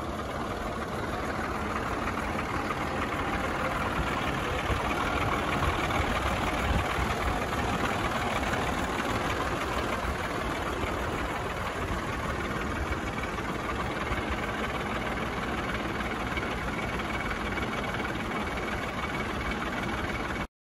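Heavy goods lorry's diesel engine running at low revs close by: a steady knocking engine sound that swells a little in the first couple of seconds, holds steady, and cuts off suddenly near the end.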